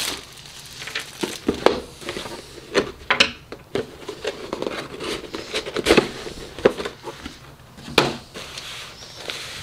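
A cardboard plastic-model-kit box being handled and opened: rustling and crinkling of the shrink-wrap and cardboard, broken by a few sharp knocks of the box and its lid against a hard tabletop.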